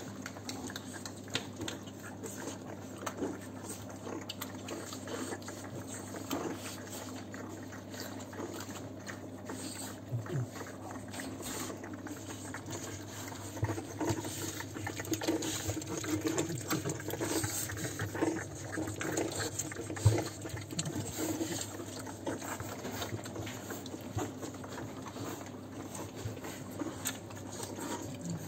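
French Bulldog puppies suckling from their mother: a steady run of small wet sucking and smacking clicks, busier about halfway through.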